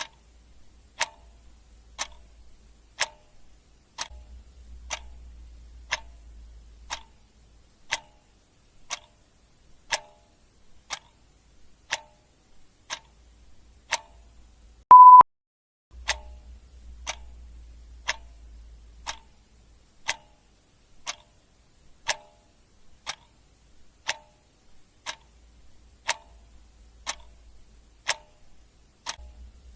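Clock ticking sound effect, one tick a second. About halfway through there is a single short, loud, high beep.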